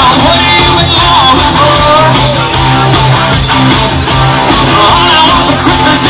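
Loud rock music with guitar and a singing voice, steady throughout.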